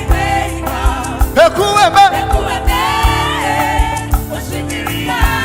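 Live gospel worship music: a band with a steady kick-drum beat and singing voices carrying the melody.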